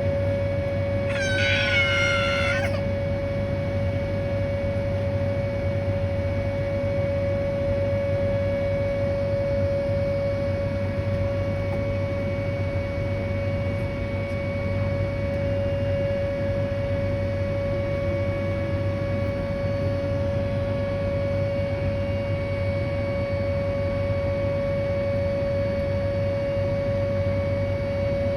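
Whelen 2810 outdoor warning siren sounding a steady 560 Hz tone during its monthly test. About a second in, a brief high, wavering cry rises over it.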